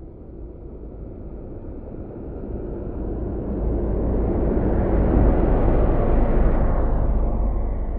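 A deep rumbling noise that swells to its loudest about five seconds in and then eases a little, played as a stock sound effect.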